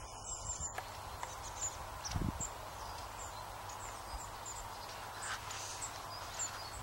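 Small wild birds chirping: short high calls repeated many times over a steady outdoor hiss, with a soft low thump about two seconds in.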